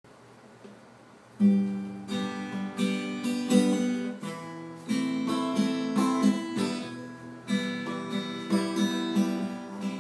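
Acoustic guitar strummed in a rhythmic chord pattern, coming in about a second and a half in after a short quiet stretch.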